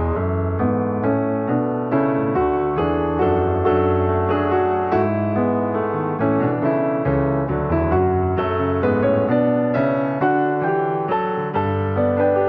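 Piano music: a steady run of struck notes over held low bass notes.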